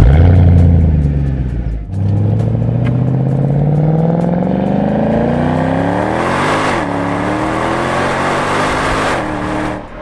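Mercedes-AMG M156 naturally aspirated V8 of a 2007 CLK63 AMG flaring loudly as it starts and settling back. Then, on the move, the engine and exhaust rise steadily in pitch under acceleration, drop briefly at an upshift about two-thirds of the way through and climb again, cutting off near the end.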